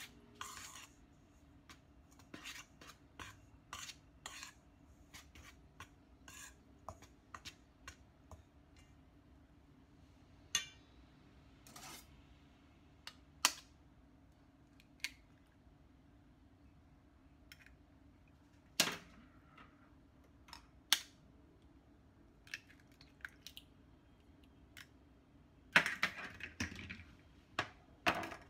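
Scattered clinks and taps of a spoon and a knife against a stainless steel mixing bowl while flour is mixed by hand and eggs are cracked open, with a busy run of knocks near the end. A faint steady hum runs underneath.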